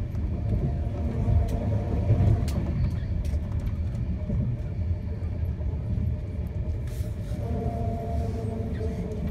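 Steady low rumble of an Enterprise passenger train's carriage running at speed, heard from inside the coach, with a few faint clicks from the wheels and running gear.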